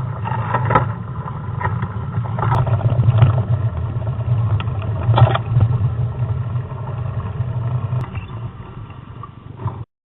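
Steady low rumble with scattered clicks and rattles from a home-built recumbent bike being ridden over rough ground. It cuts off abruptly near the end.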